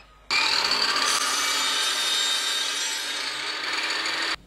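Table saw blade cutting through plywood: loud, even cutting noise with a high steady tone over it, starting abruptly about a third of a second in and stopping sharply near the end.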